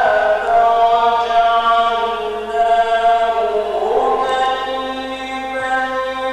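A man's voice reciting the Quran in melodic mujawwad (tajweed) style, holding long notes. Through the first few seconds the pitch glides slowly down, then settles into a steady held tone.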